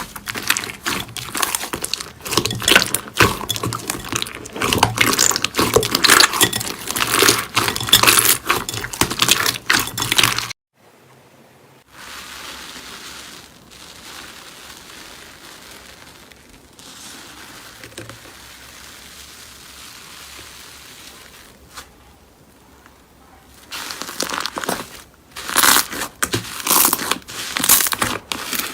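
Slime being squished and poked by hand: dense crackling and popping clicks that stop abruptly about ten seconds in, give way to a long much quieter stretch, and return near the end.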